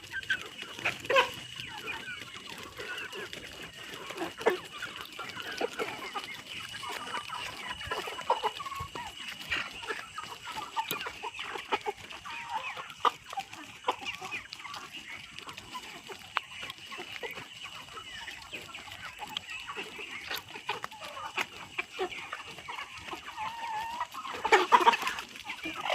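A flock of chickens clucking, many short overlapping calls throughout, with a louder burst of calls near the end. A faint steady high-pitched tone runs beneath them.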